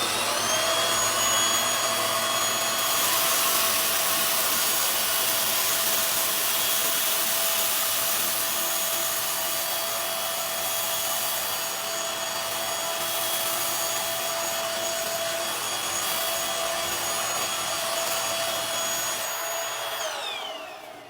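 Cordless stick vacuum running on its highest setting during a rice suction test: its motor whines up to speed at the start, runs steadily with a strong rush of air, then spins down near the end.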